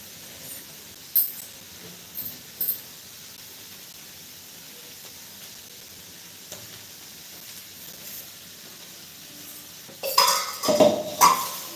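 Steel kitchen utensils clinking a few times, then a steady faint hiss, then a burst of loud metallic clattering with ringing about ten seconds in, as steel pots and bowls are handled on the counter.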